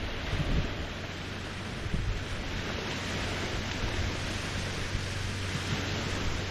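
Small Lake Huron waves lapping the shore in a steady wash of water, with a few brief low bumps of wind on the microphone.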